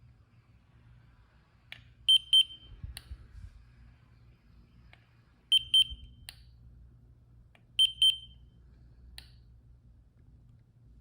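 An electronic device giving short, high double beeps three times, with a sharp click before and after each pair.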